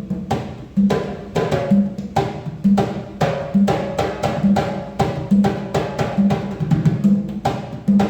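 Percussion music: drums struck in a steady rhythm, several hits a second with a strong low beat about once a second and pitched tones above.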